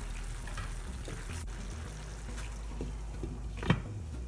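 Wet glass noodles and vegetables being stirred in a frying pan, a soft wet, liquid sound, with one sharp knock about three and a half seconds in.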